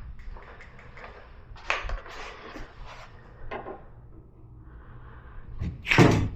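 Scattered knocks, clicks and scrapes of hand tools working on the tailgate hinge parts, with the loudest knock near the end.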